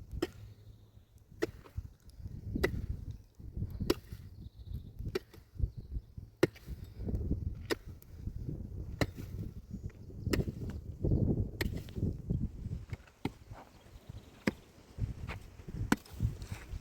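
Wood being chopped: a sharp blow about every second and a quarter, steady and even, with low rumbling noise between the strokes.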